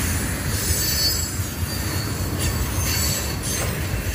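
Loaded tank cars of a freight train rolling past on a curve: a steady rumble of steel wheels on the rails, with faint high wheel squeal.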